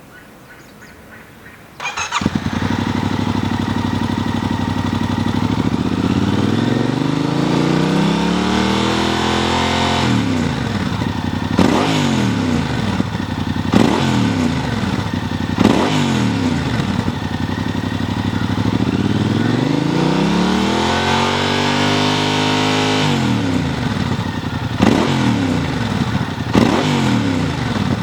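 Yamaha MT-07's parallel-twin engine through an SP Tadao Power Box aftermarket muffler. It starts about two seconds in and idles, is slowly revved up twice, and is blipped sharply several times between.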